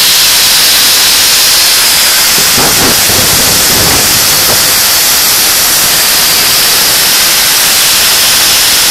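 Black & Decker KR704RE 710 W hammer drill running flat out in reverse, its cooling-fan exhaust blowing from the side vents straight onto the microphone as a loud, steady rush of air noise.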